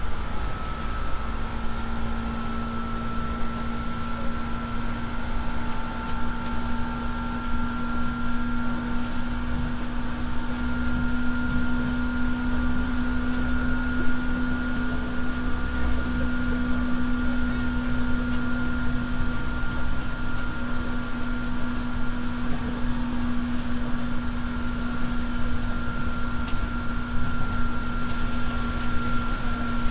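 Seibu 301-series electric train heard from inside a motor car while running at speed: a steady whine from the traction motors and gears over the low rumble of the wheels on the rails. The whine edges slightly up in pitch over the first half, then holds level.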